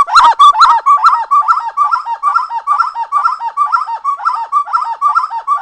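Spot-winged wood-quail (uru) singing its fast, rhythmic song of repeated mid-pitched whistled notes, several a second, loudest in the first second and then going on steadily.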